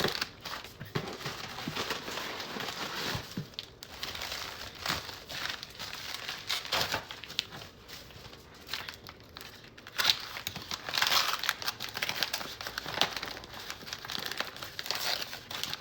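Plastic bag crinkling and rustling as it is handled, in irregular bursts, loudest about ten seconds in.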